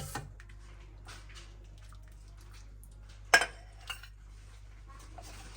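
Kitchenware being handled: one sharp metallic clank with a brief ring a little over three seconds in, with a few smaller clinks around it.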